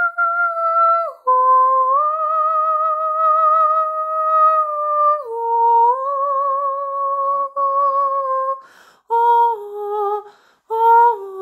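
A high voice humming a slow melody, with long held notes that waver with vibrato. Near the end it moves into shorter notes with brief gaps between them.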